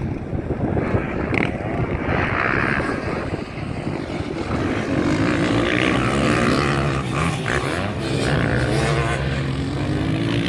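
Several motocross dirt bike engines revving up and down as the bikes race around the dirt track.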